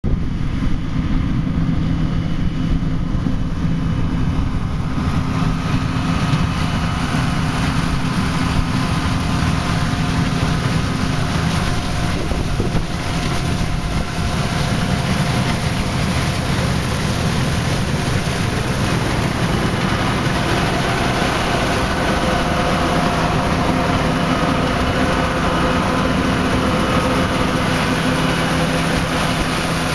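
Combine harvester running steadily while harvesting soybeans: a constant engine drone with threshing and machinery noise over it.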